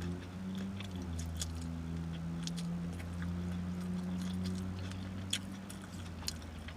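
Mouth chewing a cold cut sub, with scattered short wet clicks and smacks, over a steady low hum.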